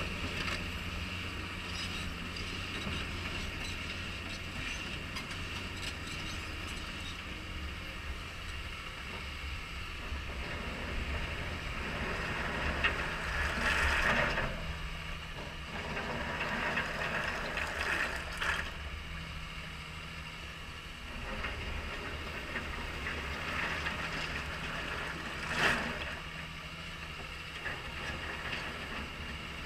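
CAT 320E excavator's diesel engine running steadily under work, with its hydraulics, as it handles a stone stockpile. Three short bursts of stone clattering from the bucket stand out over the engine, the loudest about halfway through and another near the end.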